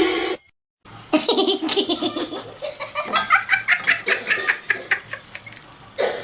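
A small child laughing hard in quick, repeated peals, starting about a second in after a brief silence.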